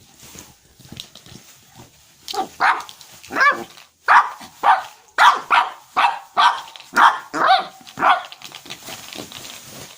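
Chihuahua puppy barking: a run of about a dozen short yaps, roughly two a second, starting about two seconds in and stopping about two seconds before the end.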